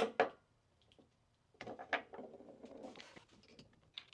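Two sharp clicks, then about a second and a half in a run of clicking and rattling as the metal and urethane parts of an electric skateboard's front truck are handled and taken apart, ahead of swapping its bushings.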